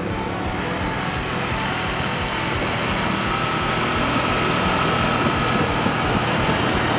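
Royal Enfield Continental GT 650's parallel-twin engine running as the motorcycle rides at road speed, mixed with wind and road noise, growing a little louder through the middle as it approaches.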